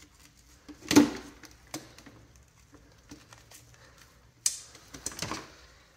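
Hard plastic clunks and clicks as a SNOO bassinet's plastic top plate is lifted off its base. There is one loud knock about a second in, a few light clicks after it, and a brief scraping rustle near the end.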